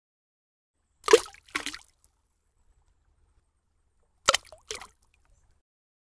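Cartoon splash sound effects as an egg drops into a bucket of paint and comes out: two short liquid splashes about a second in, then another two about three seconds later.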